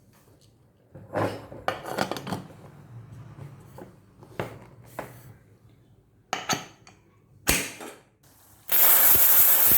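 A few metal clinks and knocks of a pressure cooker being closed, then near the end a loud pressure-cooker whistle: steam hissing hard out from under the weight for about two seconds as the cooker comes up to pressure with rice and moong dal inside.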